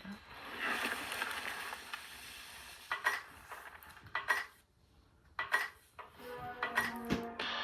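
Opening of a music video's soundtrack: a hissing wash, then several sharp metallic clinks with a short hush between them, and steady musical notes coming in about six seconds in.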